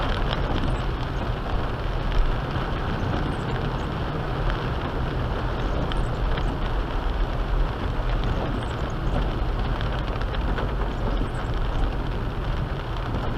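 Steady noise inside a car in a rainstorm: rain pattering on the windshield and roof over the low rumble of the car, with a brief knock about two seconds in.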